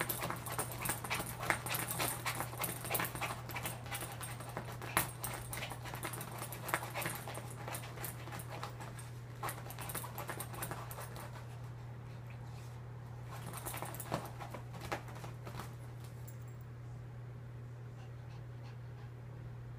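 A chihuahua inside a zipped fabric dog stroller panting and scratching and pawing at the fabric and zippers, trying to get out. The scratching is busy for the first twelve seconds, comes back in a short flurry a little later, then dies down. A steady low hum runs underneath.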